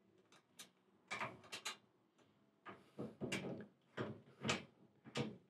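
Faint, scattered clicks and knocks of a hand spanner working bolts on a metal roof-shelf bracket, in several short clusters.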